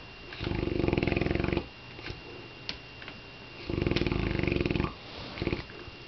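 Saint Bernard snoring in its sleep: two long snores about three seconds apart, each a little over a second, then a short one near the end.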